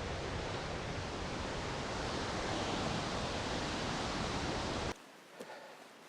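Steady loud rush of a rain-swollen waterfall in full spate. It cuts off abruptly about five seconds in, leaving a much quieter background with a few faint ticks.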